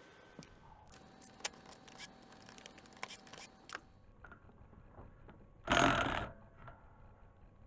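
Small metal clicks and clinks of tools and parts being handled while working on a Robin EY18 engine, then a single loud rasping noise lasting about half a second about three quarters of the way through.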